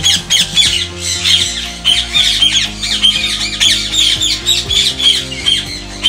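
Ringneck parakeets in an aviary calling nonstop, a dense chatter of short, sharp squawks, over background music with steady held notes.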